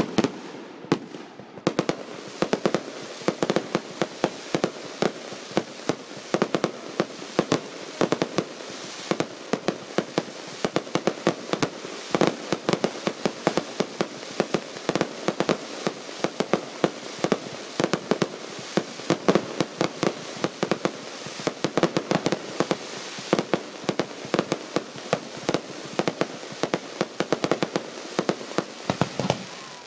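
Fireworks bursting overhead: a continuous stream of sharp pops and crackles, several a second, with no let-up.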